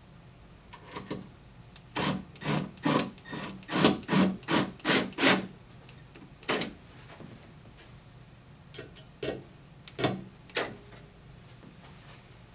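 Cordless drill driving screws through a metal wall-mount bracket into the wall in short trigger bursts: a quick run of about two bursts a second, then a few spaced-out ones.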